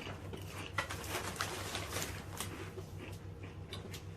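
Crunchy crackling of Doritos tortilla chips being chewed, a quick irregular run of small crisp snaps, over a steady low hum.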